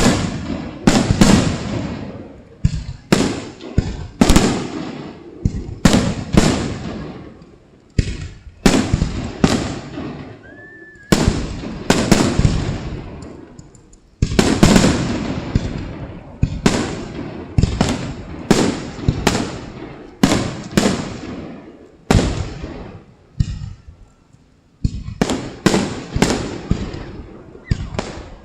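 Aerial fireworks bursting in a rapid series of booms, about one or two a second with brief lulls, each bang trailing off in a rumbling echo.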